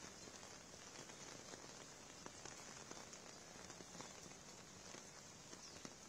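Faint, steady hiss of water with many scattered light crackles.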